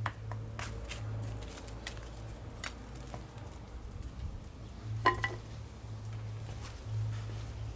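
Scattered clicks and light scrapes of a wooden stick poking through dry bark mulch, with one sharp ringing clink about five seconds in. A low hum comes and goes underneath.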